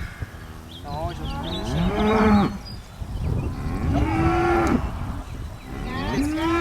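Cattle mooing: three long calls, each rising and then falling in pitch, one after another.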